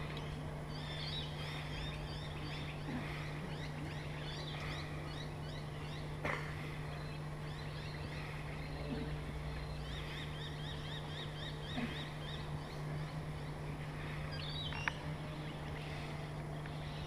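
Birds chirping at dawn in the trees, with repeated short high calls and one fast run of about ten quick notes near the middle, over a steady low hum. A faint knock comes about six seconds in.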